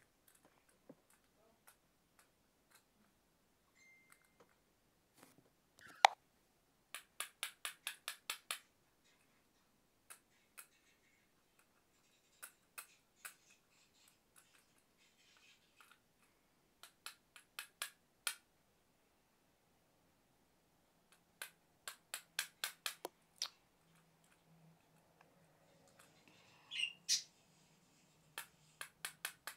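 Sharp clicks and taps from handling small plastic toys and their packaging. One loud click comes about six seconds in, and there are several quick runs of clicks at about six a second.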